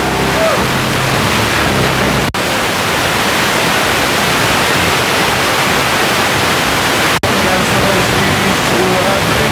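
FM radio static: loud, even hiss from a phone's FM receiver tuned between stations. It cuts out for an instant twice as the tuner steps to the next frequency, and faint traces of a weak station show through the hiss near the end.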